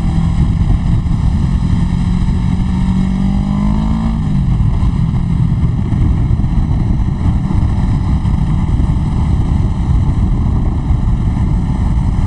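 Kawasaki Ninja 650R parallel-twin engine under way, rising in pitch as it accelerates, then dropping at a gear change about four seconds in and holding steady. Heavy wind noise buffets the helmet mic throughout.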